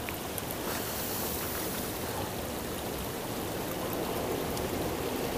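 River water running over rocks, a steady even rush.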